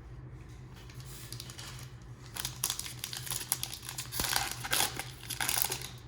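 Foil wrapper of a trading-card pack crinkling and being torn open, in quick irregular bursts starting about two seconds in.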